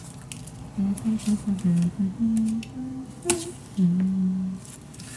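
A woman humming a tune to herself, a run of short notes stepping up and down and then one longer held note, with light clicks and taps of paper being handled.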